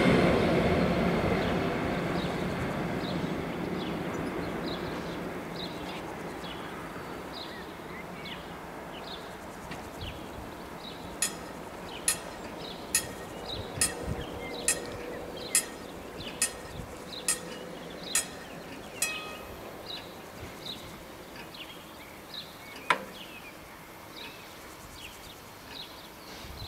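An ÖBB electric-locomotive-hauled regional express train moving away, its rumble fading out over the first several seconds. After that it is quiet, with short high chirps repeating and, from about the middle, a run of about ten sharp clicks a little under a second apart.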